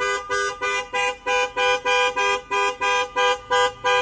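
Car horn honking in short, evenly spaced two-note blasts, about three a second, pressed by a bulldog standing on the driver's seat with its paws on the steering wheel.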